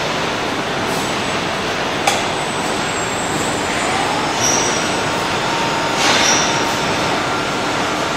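Steady running noise of an automated car-body conveyor and transfer lift, with a sharp metallic click about two seconds in and brief high metal squeals around four and a half and six seconds in as the body is lifted onto the overhead carrier.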